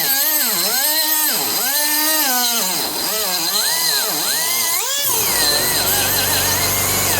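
Central Pneumatic 1/8" mini air die grinder cutting into metal, its high whine dipping in pitch again and again as it bites and picking back up between cuts. About five seconds in, the whine turns rougher and a lower, steady running noise joins it.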